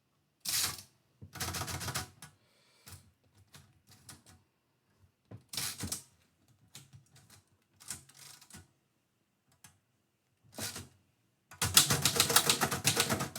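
Typewriter keys striking in short bursts of rapid clacks, broken by pauses, then a long fast run of typing near the end.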